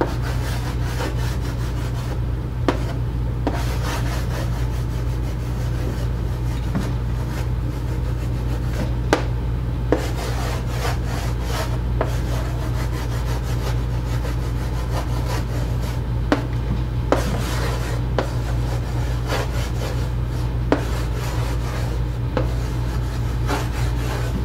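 Chalk scratching and tapping on a chalkboard as words are written, in short strokes with sharper taps here and there, over a steady low hum.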